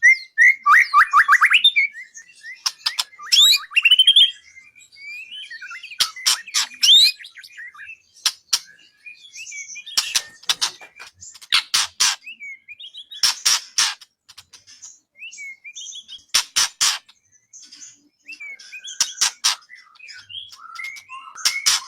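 A songbird singing a varied, continuous song: quick whistled trills and glides, broken every second or two by short, harsh rattling notes.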